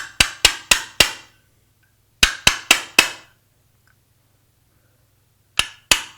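A hammer tapping a steel roll pin flush into a paintball magazine's latch, with the pin held in vice grips. Three quick runs of sharp strikes, about four a second, each with a short ring: five at the start, four a little past two seconds in, and two near the end.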